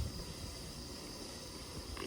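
Outdoor background: an uneven low rumble of wind or movement on the microphone, with a brief low bump at the start, under a steady high hiss like insects droning in the grass.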